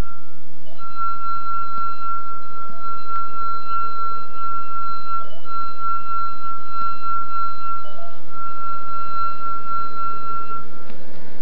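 Wine glass holding some grape juice, sung by a wet fingertip circling its rim: a steady, high ringing tone with faint overtones. It dips briefly twice and stops near the end.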